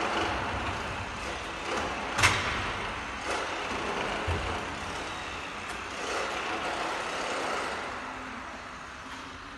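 Ice resurfacing machines running out of view, a steady engine rumble that echoes round the empty arena. There is a sharp knock about two seconds in and a duller thud about four seconds in.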